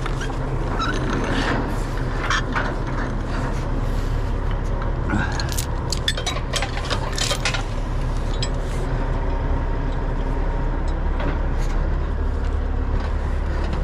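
Tow truck's diesel engine running steadily, with chain and cable hardware clinking and clanking as chains and the winch cable are handled.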